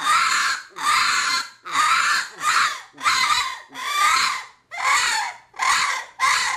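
Double-reed coon squaller call blown in a steady run of short, squalling cries, a little more than one a second, imitating a raccoon. The caller's cupped hand over the end of the call shapes each cry.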